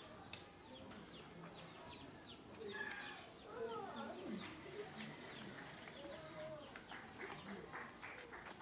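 Chickens clucking, with a steady run of short, high, falling cheeps and a few lower drawn-out calls near the middle, all fairly faint.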